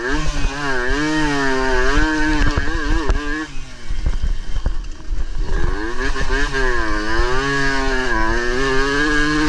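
Suzuki AX100's two-stroke single-cylinder engine racing flat out, heard from on the bike: the revs climb and drop again and again through gear changes and turns, ease off for about two seconds near the middle, then build up again.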